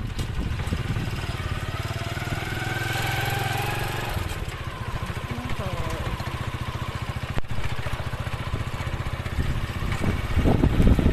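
Small motorcycle engine running steadily, with a fast, even low putter.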